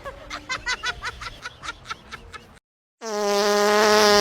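A run of quick squeaky fart noises that fade out, a sudden cut to silence, then a loud, steady, buzzing fart noise that starts abruptly about three seconds in.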